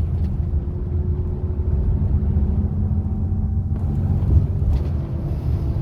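Inside a rail replacement coach on the move: steady low engine hum and road rumble, with a faint click or two near the end.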